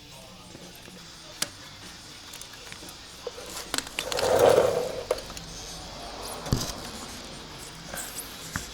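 Hand tools and bike parts clicking, clinking and scraping during disassembly, with a louder scrape or rustle about four to five seconds in and a dull thud about two seconds later.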